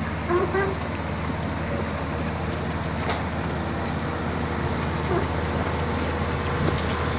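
Excavator's diesel engine running steadily with an even, constant low hum.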